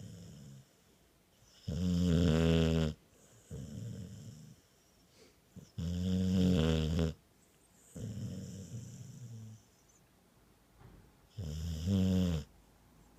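Deep snoring in a slow rhythm: three loud, drawn-out snores about four to six seconds apart, with softer breaths between them.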